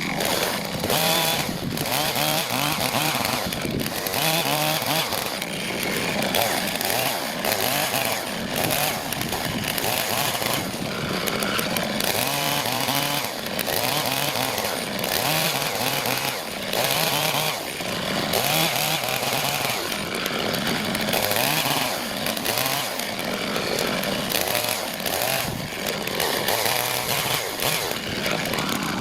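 Two-stroke chainsaw running and cutting firewood, its engine pitch rising and falling as it works through the wood.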